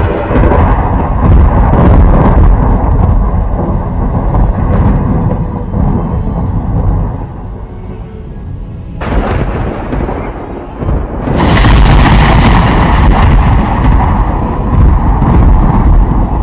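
Thunderstorm: loud, continuous rolling thunder. A fresh crash comes about nine seconds in and swells again a couple of seconds later.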